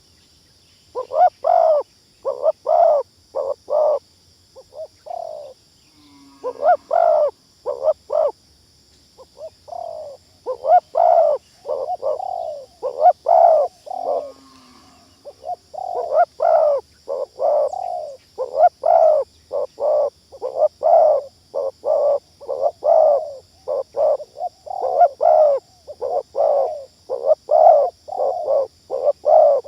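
Spotted doves cooing in fast, dense runs of short coos, over and over with only brief pauses, as used to lure wild doves down. A faint steady high hiss sits behind them.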